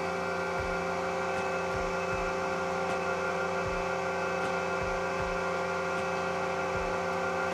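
Surface grinder with its grinding wheel spinning at just under 1,800 rpm, a steady hum made up of several even tones. The wheel is well balanced, its vibration under half a micron.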